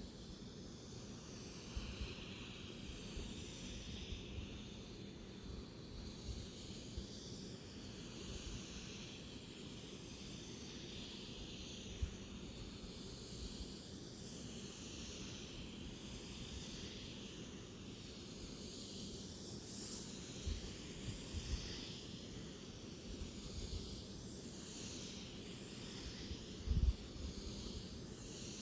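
Faint steady hiss over a low rumble, with scattered soft low bumps, the loudest near the end.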